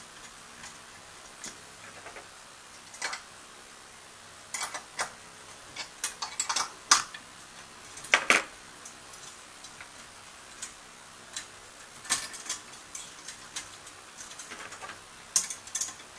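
Irregular metallic clicks and clinks of a long metal hand tool working a nut on a terminal rod against the steel electrode plates of an HHO cell, in short clusters with pauses between.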